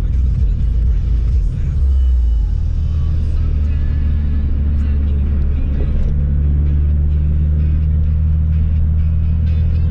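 Car engine and road noise heard from inside the cabin while driving: a steady low drone whose tone changes about two seconds in.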